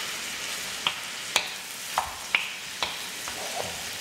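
Chicken pieces sizzling as they stir-fry in oil in a stainless steel pan, with a wooden spatula knocking and scraping against the pan about six times as the pieces are turned.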